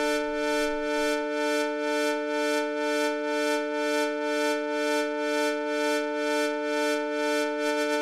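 Beehive, a small Eurorack clone of the Mutable Instruments Plaits digital oscillator, holding one steady synthesizer tone rich in overtones. An envelope drives its level input (low-pass gate), so the brightness and loudness pulse in a steady rhythm, which quickens near the end.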